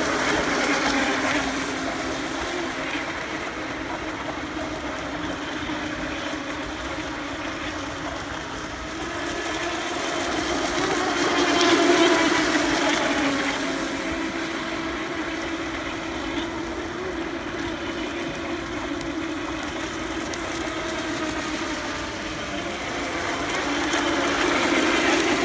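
Several Pro Boat Recoil electric RC speedboats racing, their brushless motors and propellers whining steadily with small shifts in pitch. The sound swells as the boats pass close, about halfway through and again near the end.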